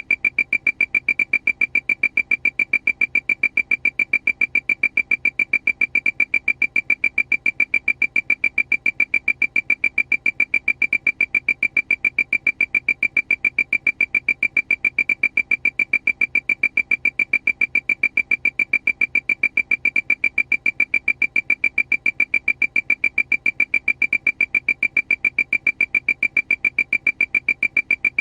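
Airplane warning alarm: a high-pitched electronic beep repeating rapidly and evenly, without a break.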